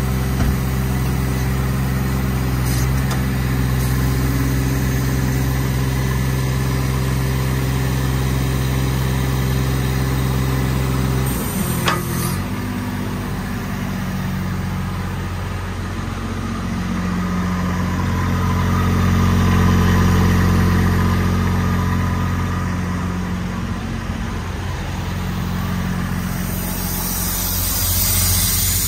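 Kubota diesel engine of a Miller EnPak service unit running steadily. Its note changes abruptly about twelve seconds in, with a click, then swells louder for a few seconds around twenty seconds in before easing back.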